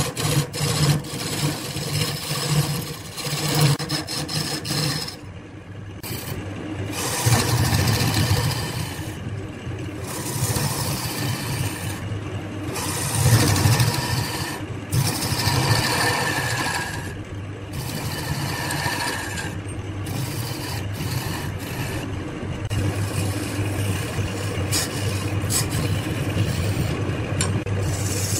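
Wood lathe running with a steady low hum while a hand-held turning tool cuts a spinning wooden vase blank, making a rough shaving hiss. The hiss breaks off briefly several times as the tool is lifted from the wood.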